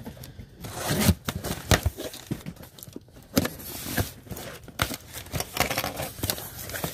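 Yellow safety box cutter slicing through the packing tape on a cardboard box, with scratchy tearing; then the cardboard flaps are pulled open and foil candy bags inside rustle and crinkle as they are handled, with many short sharp crackles.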